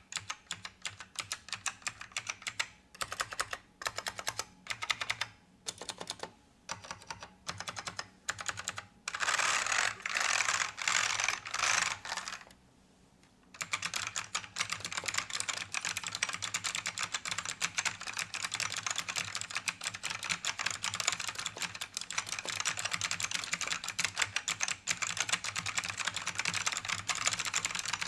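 Typing on an ACME KB-108 keyboard with Alps SKCM "Bamboo" Black switches. Spaced-out single keystrokes and short runs come first, then a dense, louder run, a short pause about halfway through, and fast, continuous typing after it.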